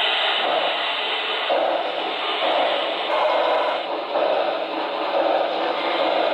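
Sound system of a model Pennsylvania Railroad T1 duplex steam locomotive running slowly: steady steam hiss with exhaust chuffs repeating about once a second.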